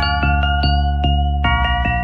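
Sped-up nightcore song: sustained synth chords over a heavy bass, with sharp percussion hits about five times a second and a high bell-like note held through.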